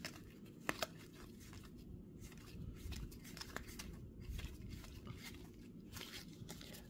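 Faint slides and soft ticks of stiff baseball trading cards being moved one behind another in the hands, with two sharper clicks under a second in.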